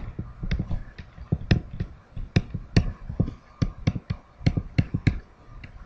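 Pen stylus tapping and clicking on a tablet screen while words are handwritten: a string of sharp, uneven ticks, about three or four a second.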